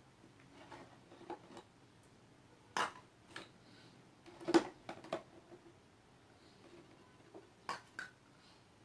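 A few sharp knocks and clinks of containers and utensils being handled while slime ingredients are mixed, with faint handling noise between them.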